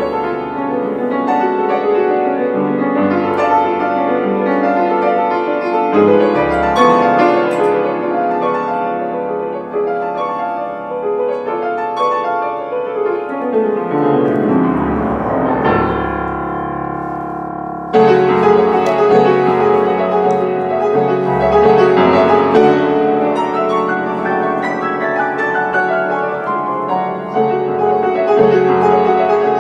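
Mason & Hamlin grand piano played solo, with dense, continuous notes. A little before halfway a quick descending run leads into a sudden, louder passage.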